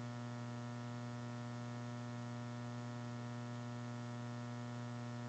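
Steady electrical mains hum: one low tone with a ladder of evenly spaced overtones, unchanging throughout.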